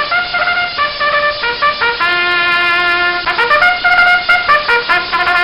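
A solo trumpet-like brass melody: a run of short notes, one note held for about a second, then more quick notes.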